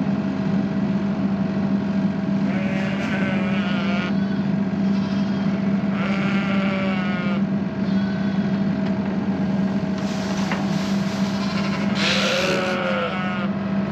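Tractor engine running steadily, with sheep bleating three times over it.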